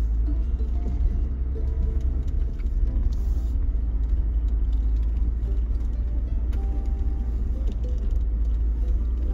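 Steady low rumble of a Jeep driving over a dirt trail, with faint background music over it.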